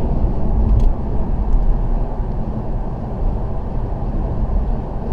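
Steady road and engine noise heard inside a Toyota Auris's cabin while it drives along: a low, even rumble of tyres and motor, with one faint click about a second in.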